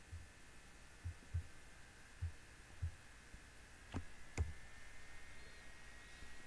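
Faint room tone with a steady high electrical whine. Soft low thumps come every second or so, and two sharp clicks fall close together about four seconds in.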